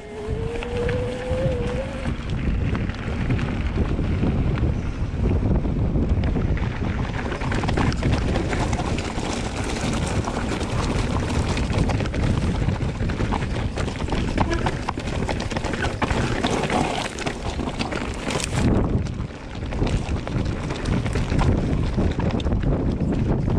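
Wind buffeting the microphone: a steady rumbling rush of noise, with a brief rising tone in the first two seconds.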